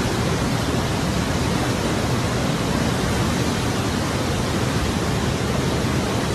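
Floodwater of a river in flash flood rushing by in a loud, steady, unbroken wash of noise.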